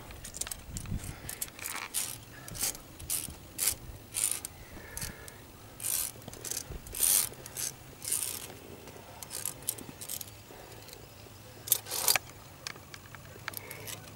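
Carabiners and other metal climbing gear clinking and scraping in short, irregular bursts, loudest about seven and twelve seconds in.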